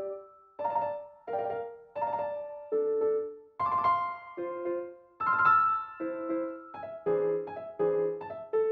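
Bright, upbeat electronic music: a keyboard plays a melody of struck chords that each ring and fade, about one to two a second, coming quicker near the end.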